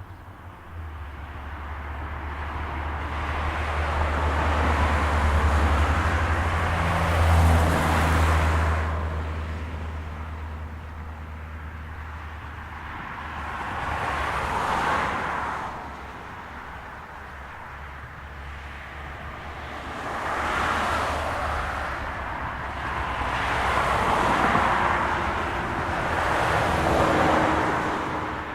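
Cars passing one after another on a road, each a swell of tyre and engine noise that rises and fades as it goes by, about five passes in all. A steady low rumble sits under the first third.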